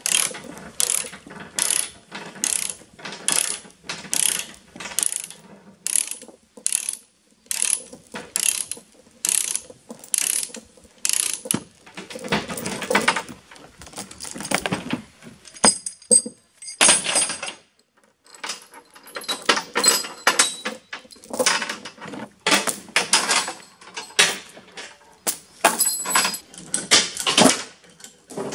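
Ratchet chain binder being cranked to tension the tie-down chain over a log, its pawl clicking about twice a second. Around the middle the clicking gives way to a few seconds of rougher, noisier handling, then resumes.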